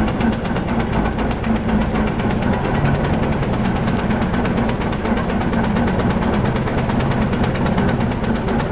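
Steam donkey, a steam-powered logging winch, running steadily under load as it winds in the main line to drag logs in. It has a fast, even beat and a steady low hum.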